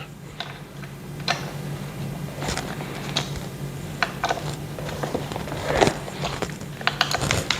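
Allen key turning a bolt into a gaming chair's frame. Irregular small metallic clicks and taps, with a louder knock about six seconds in.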